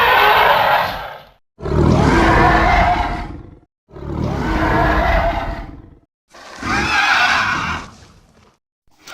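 Film monster roars made for a giant mutated Komodo dragon, played one after another. Each roar lasts about two seconds, swelling then fading, with a short silence before the next. The first is already under way and ends about a second and a half in, three more follow, and a fifth begins right at the end.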